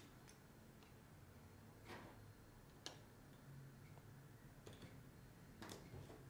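A few faint, scattered clicks and taps of plastic Numicon shapes being picked up and set down on a mat, over near silence.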